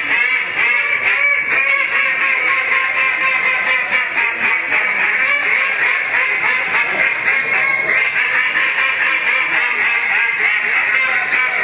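Two duck calls blown by two callers together in a continuous, loud stream of rapid quacks and chatter, imitating live ducks.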